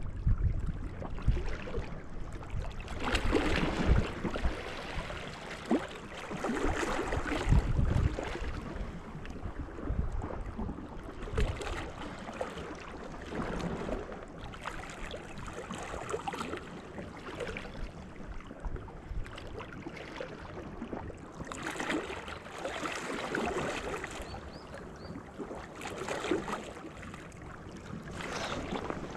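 Small sea waves washing and lapping against the shore in irregular surges every few seconds, with gusts of wind buffeting the microphone in low rumbles.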